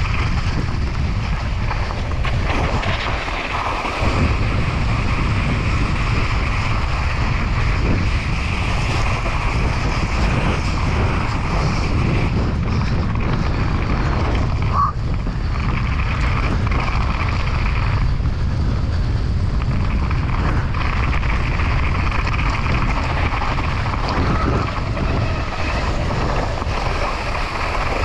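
Wind buffeting a GoPro's microphone on a fast downhill mountain-bike run, with the tyres rolling over slushy snow and dry grass in a steady rushing noise. A short squeak sounds about halfway through.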